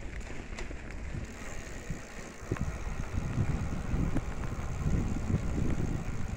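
Uneven low rumble of wind buffeting the microphone outdoors, with a few faint clicks.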